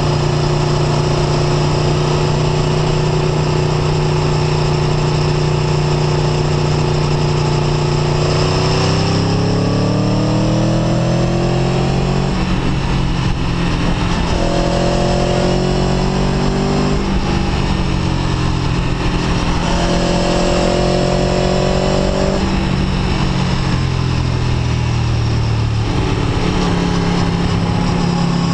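Aprilia Tuono V4 1100 RR's V4 engine heard from the saddle while riding: it holds a steady pitch for about eight seconds, then the revs climb and drop back in several steps as the bike accelerates, easing to a steady lower pitch near the end.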